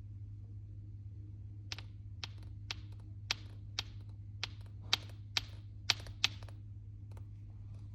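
A series of about ten sharp clicks, roughly two a second, starting a little under two seconds in and stopping about six seconds in, over a steady low hum.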